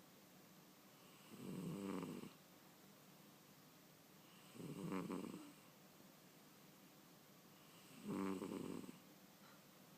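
A cat snoring: three slow snores, each lasting about a second and spaced about three and a half seconds apart.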